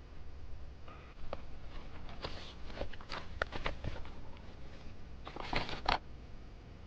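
Keys of an AULA F3261 mechanical keyboard with red switches being typed on: irregular runs of clacks, busiest about two to four seconds in and again just before the six-second mark.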